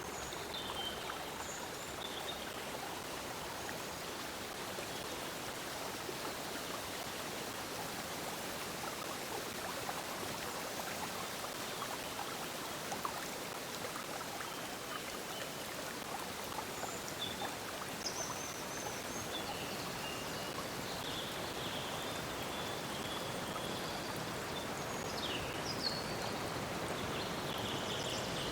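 A stream of water flowing steadily over stones, with birds chirping briefly now and then, more often in the second half.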